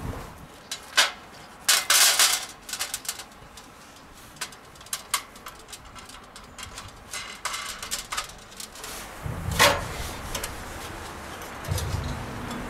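Esbit stainless-steel folding grill being unfolded and set up by hand: metal panels clinking and clattering, with a few sharper knocks, the loudest about two seconds in and near the end.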